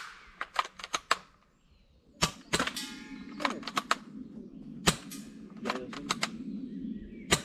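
Gun shots on a shooting range: a string of sharp cracks at uneven intervals, with a quick rattling cluster about two and a half seconds in.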